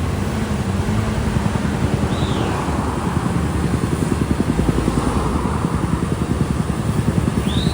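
Diesel engine of a Cat backhoe loader running steadily with a fast, even low pulsing. Two short high falling squeaks, one about two seconds in and one near the end.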